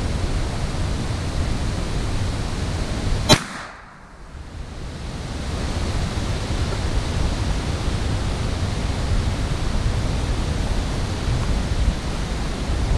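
A single sharp gunshot about three seconds in, over a steady rushing noise. The sound drops away for about a second after the shot, then the rushing comes back.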